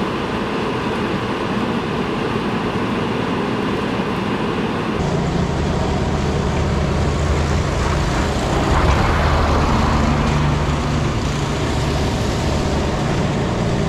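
Road and tyre noise of a vehicle driving a wet, slushy highway. About five seconds in it changes to a steady low engine hum with the hiss of traffic on a slushy road, swelling as a vehicle passes.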